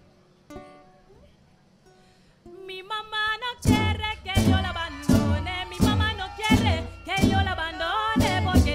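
Parang band's acoustic guitar and cuatro: a few soft plucked notes, then about two and a half seconds in the strings begin the next song's intro, settling a second later into a steady, loud strummed rhythm.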